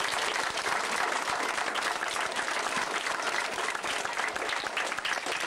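Crowd applauding: many hands clapping in a steady, dense patter that thins a little near the end.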